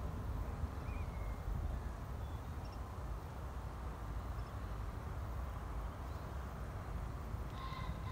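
Open-field ambience: a steady low rumble of wind, with a few faint, brief bird chirps and a clearer bird call near the end.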